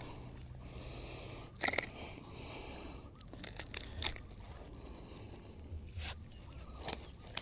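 Quiet outdoor ambience: a steady high-pitched insect whine over a low rumble, with four soft knocks or rustles scattered through.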